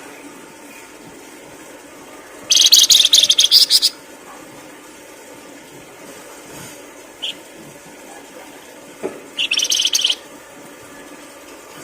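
A songbird giving two bursts of fast, high, chattering trills, the first about a second and a half long and the second under a second, with a single short chirp between them, over a steady faint hiss.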